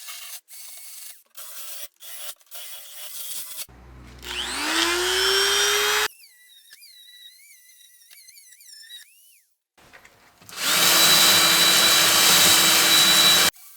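Angle grinder fitted with a wire wheel spinning up with a rising whine, then running steadily against rusty car sheet metal to strip it to bare metal. It comes in short edited bursts that stop abruptly, with a high, dental-drill-like whine.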